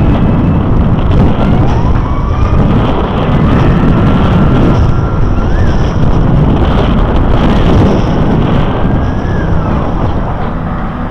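Wind rushing over a bike-mounted camera microphone, with tyre and road rumble from riding along a sidewalk. A faint thin tone slowly rises and falls behind it.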